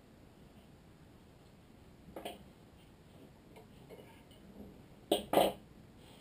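Badminton racket string being handled at the frame on a stringing machine: a brief rustle about two seconds in, a few faint ticks, then two sharp snaps close together about five seconds in.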